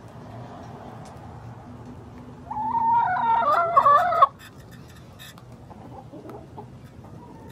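A chicken gives one loud call lasting nearly two seconds, starting about two and a half seconds in, its pitch wavering. A few faint sharp clicks come during and just after it.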